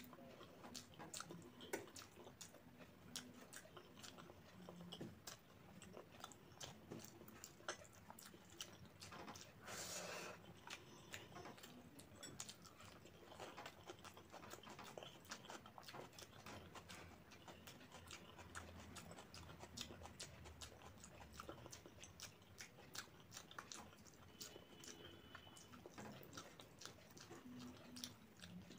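Quiet close-miked chewing of rice and egg curry, with many small wet clicks from the mouth throughout and one brief louder hiss about ten seconds in.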